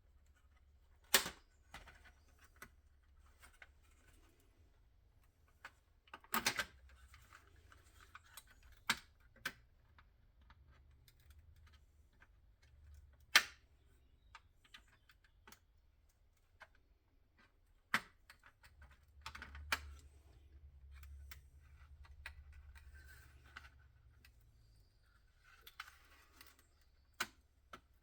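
Sparse sharp clicks and knocks from the plastic brake-light housing and small tools being handled, with a faint stretch of scraping or rustling about two-thirds of the way through.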